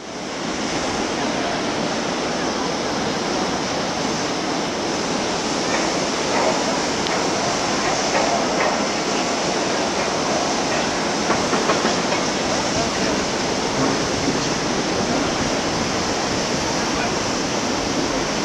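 A steady rushing and rattling from a water-chute ride: water running down the chute and the ride's train moving along its steel track, with faint voices underneath.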